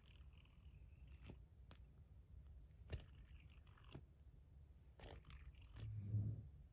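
Faint, scattered clicks and light taps of small tungsten fidget spinners being handled and set down, about half a dozen over a few seconds, with a brief low murmur near the end.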